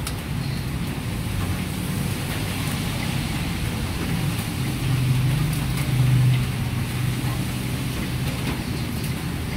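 Steady low rumble of kitchen background noise with a droning hum that swells for a second or two about five seconds in; lettuce leaves rustle lightly as they are laid on a foil tray.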